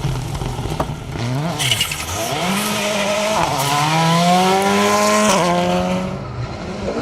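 Rally car engine accelerating hard, its revs climbing steadily through one gear and then dropping sharply at a gear change about five seconds in, before the sound fades off near the end.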